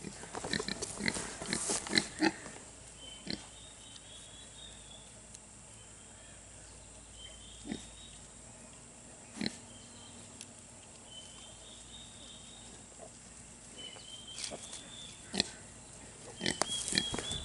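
Two-week-old Kunekune piglet grunting as it roots among twigs and grass: a flurry of short grunts in the first couple of seconds, a few single ones after, and another flurry near the end.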